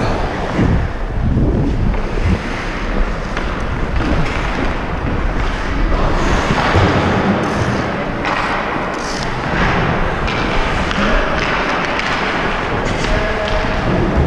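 Ice hockey skates scraping and gliding on rink ice, with wind rushing over the microphone as the wearer skates and scattered thuds and knocks of play.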